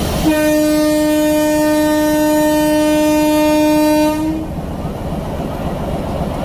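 Diesel locomotive's air horn sounding one long, steady single-note blast of about four seconds, over the rumble of the locomotive. The horn stops abruptly and the rumble carries on.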